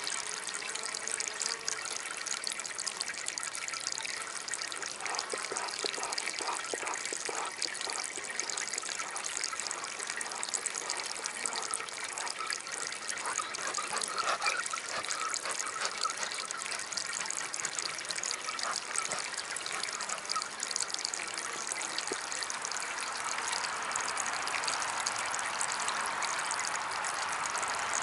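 Water trickling and splashing steadily from a small homemade fountain, growing a little louder near the end.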